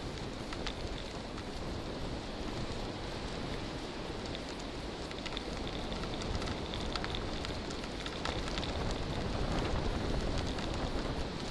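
Touring bicycle's tyres rolling over firm beach sand strewn with shell fragments: a steady crackling hiss with scattered sharp ticks, over a low rumble of wind on the microphone.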